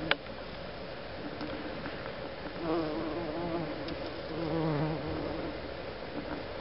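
Bumblebee buzzing in flight, a wavering hum that swells louder twice as the bee comes close. A single sharp click sounds just at the start.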